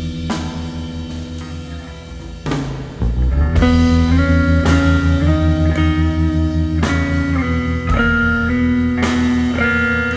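Instrumental space-rock music: reverb-laden electric guitar melody over bass and drum kit. About three and a half seconds in the music gets louder as the guitar plays long held notes that step from pitch to pitch.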